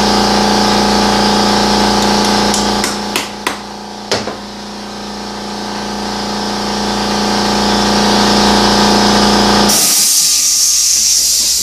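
A steady mechanical hum with a few sharp metallic clicks of a hand pick working at the Torx bolt heads on a transmission case. About ten seconds in the hum stops and a loud high hiss takes over.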